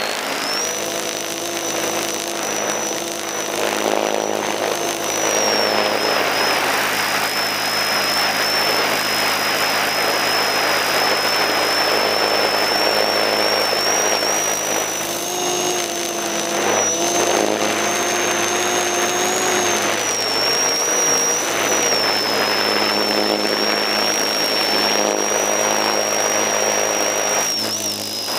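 A single-rotor FPV drone's electric motor and propeller running in flight, heard from on board: a steady high whine that wavers a little in pitch over a rush of prop wash and wind. A lower propeller hum rises and falls as the throttle changes.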